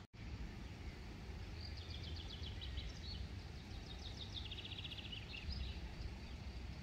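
A songbird singing fast, high trilled phrases of rapidly repeated notes, over a steady low rumble of outdoor background noise. The sound drops out for a split second just at the start.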